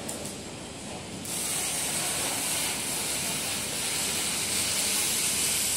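CNC round-log band resaw machine running, with a loud steady hiss that sets in sharply about a second in and holds to the end.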